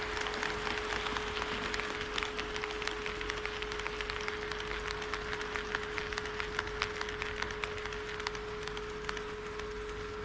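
HO scale model train running on KATO Unitrack: a steady rolling rush with irregular quick clicks of the wheels over the rail joints, which thin out near the end. A steady hum holds one pitch throughout.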